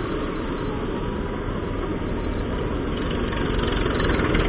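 Bajaj Pulsar RS200 motorcycle's single-cylinder engine running while riding along a highway, mixed with steady road and wind noise, getting a little louder toward the end.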